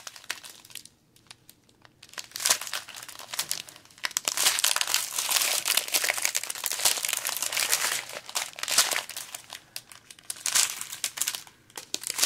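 Small clear plastic zip bags of diamond painting drills crinkling as they are handled and turned over one after another. There is a brief lull about a second in.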